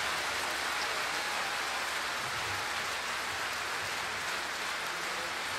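Large audience applauding steadily: an even wash of many hands clapping.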